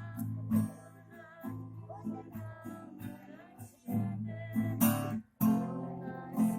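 Acoustic guitar being strummed in a steady pattern of chords, with sharp strums standing out near the end.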